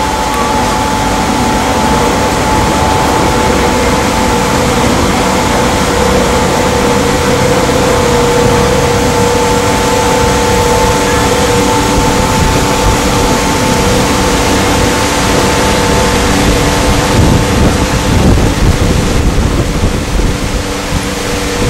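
A boat's motor running steadily with a constant hum, under a loud rush of water and wind on the microphone, which gusts harder near the end.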